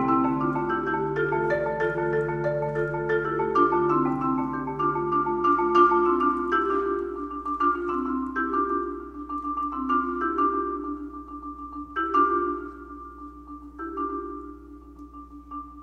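Solo marimba played with four mallets: quick struck notes over a low rolled note for the first six seconds or so, then a sparser passage of ringing strikes circling one repeated high note, growing quieter toward the end.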